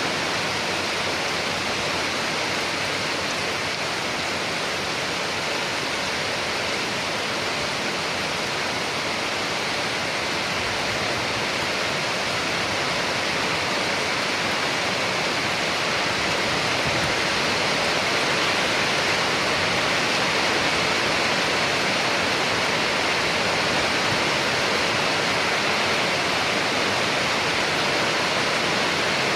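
Steady, heavy rainfall: a dense, even hiss with no separate drops or breaks, growing slightly louder about halfway through.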